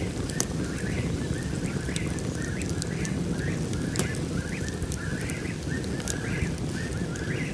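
Open wood campfire burning with scattered crackles and a couple of sharp pops, about half a second and about four seconds in, over a steady low rushing. A rhythmic chirping runs in the background, about two chirps a second.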